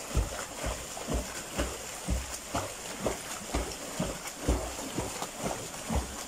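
A beginner swimmer's legs kicking the pool water in a steady run of splashes, about two a second.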